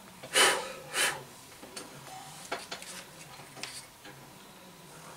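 Hands working at a model-building bench: two brief scraping or rubbing sounds about half a second apart, followed by a few light clicks and taps.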